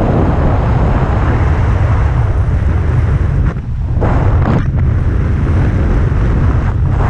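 Wind rushing and buffeting over the camera microphone during a tandem skydive: a loud, steady noise with a short lull about halfway through.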